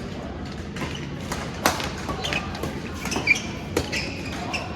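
Badminton rally: several sharp racket hits on the shuttlecock at irregular intervals, with court shoes squeaking and shuffling on the floor, the loudest squeak a little over three seconds in.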